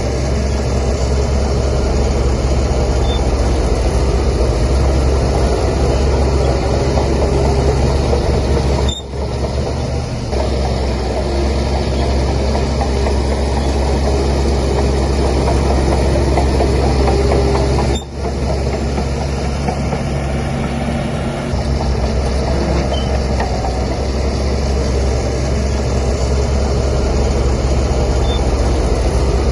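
Heavy diesel engine of a Shantui DH17C3 bulldozer running steadily under load, a continuous low drone with brief dips about 9 and 18 seconds in.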